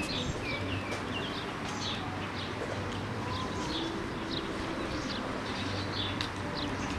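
Small birds chirping in short, repeated calls, with a low cooing call about three seconds in.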